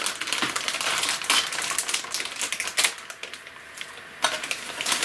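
Crinkling plastic packaging and clicking plastic pieces as a bag of snap-together model kit parts is opened, with a quieter spell about three seconds in.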